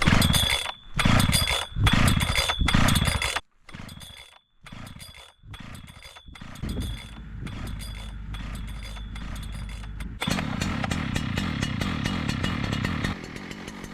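Husqvarna 3120 chainsaw's big two-stroke engine being warmed up: four short loud bursts in the first three seconds or so, then steady running that steps up for about three seconds near the end before dropping back.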